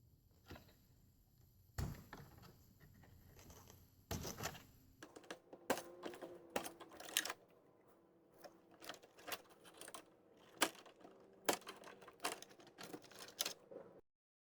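Irregular small clicks, taps and light knocks of hands handling plastic parts and small hardware inside an opened electronic keyboard, sparse at first and coming more often after a few seconds; the sound cuts off abruptly near the end.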